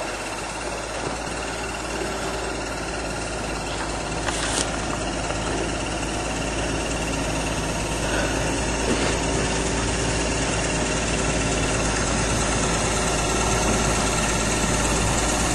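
Rebuilt Nodwell tracked carrier's engine running steadily, growing gradually louder, with one sharp click about four and a half seconds in.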